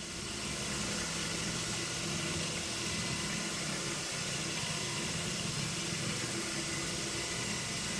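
Shoptask lathe-mill combo's spindle running steadily, a small twist drill being fed into the bronze steam-engine frame to drill a clearance hole for a mounting screw: an even mechanical hum and hiss with no breaks.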